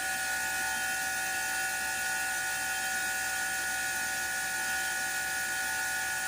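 Craftsman CMEPW2400 electric pressure washer running steadily: a constant high motor-and-pump whine over a hiss of water, as it purges air from the line.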